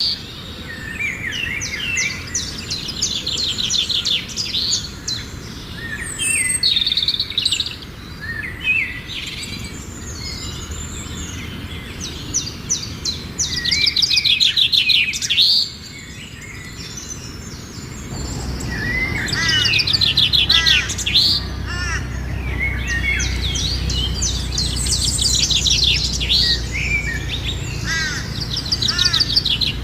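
Many birds calling at once: dense, overlapping chirps and fast, rattling, chattering trills. A low steady rumble joins beneath them a little past halfway.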